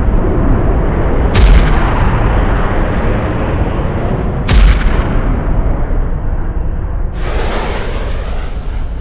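Cartoon explosion sound effects: a continuous low rumble broken by two sharp booming impacts, about a second and a half in and again about four and a half seconds in, then a rushing noise about seven seconds in that fades away.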